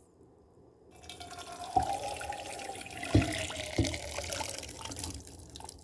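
Boiled elderberries and their liquid poured from a pot into a strainer: a steady splashing pour that starts about a second in, with three short knocks along the way.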